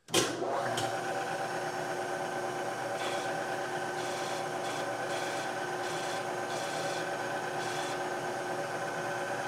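Knee mill spindle switching on abruptly and running with a steady whine, while a chamfer tool cuts deeper into a core-plug hole in an aluminium LS3 engine block, the cutting heard as several short spells of scraping.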